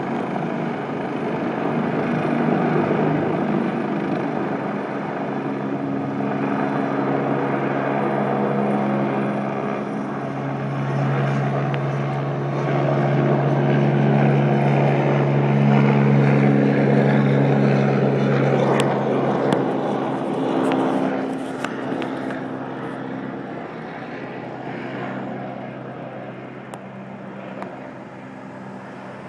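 Police helicopter hovering low overhead: a loud, steady rotor and engine drone that fades in the last few seconds as it moves off.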